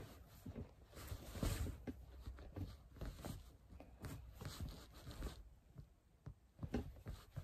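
Faint, irregular rustling of fabric with small soft knocks as clothing is pulled onto a reborn doll, its fleece top worked over the arms and head; the rustling thins out after about five seconds.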